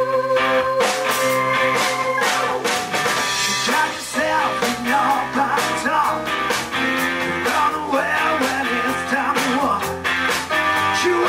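A live rock-and-roll band playing: electric guitars, bass, drums and keyboard, with vocals coming in about four seconds in.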